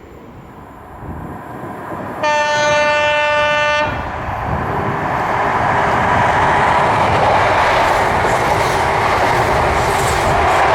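Class 43 HST power car sounding its horn, one steady note held for about a second and a half, then the train running past at speed with loud wheel-on-rail noise that builds and holds.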